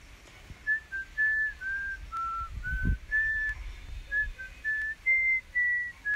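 A person whistling a tune: a quick run of clear held notes that step up and down in pitch. There is a brief low thud about three seconds in.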